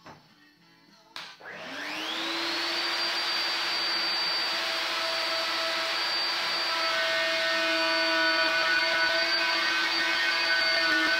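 Handheld electric plunge router switched on with a click about a second in. Its motor winds up over a second or so to a steady high whine as it is guided around a curved template.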